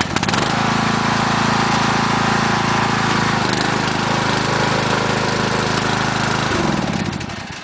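Lawnmower engine, just started, running steadily, then shut off and spinning down to a stop near the end.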